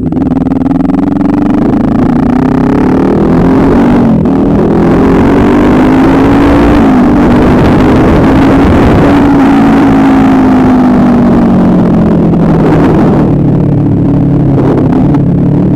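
An engine running steadily, its pitch drifting gently up and down.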